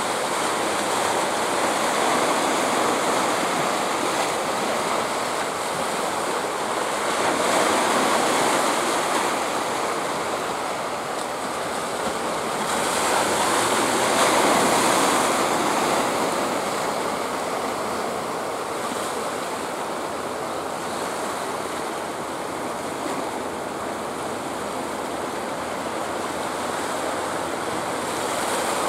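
Sea surf washing in, a steady rush that swells and eases about every six seconds.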